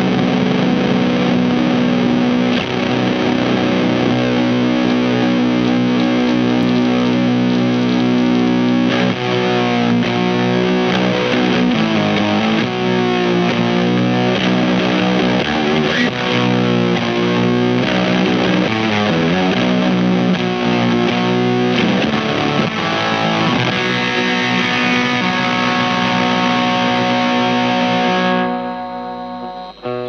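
Eastwood Sidejack Deluxe baritone electric guitar played through a Weird Noise Pedals Fuzz It fuzz pedal into an amp, giving a thick, heavily fuzzed, sustained tone. About 28 seconds in the loud fuzz drops away and thins out.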